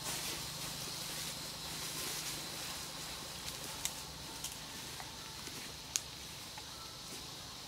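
Dry leaf litter rustling and crackling as young macaques move about on the forest floor, with a few sharp clicks, the loudest about six seconds in, over a steady low hum and a faint high insect-like tone.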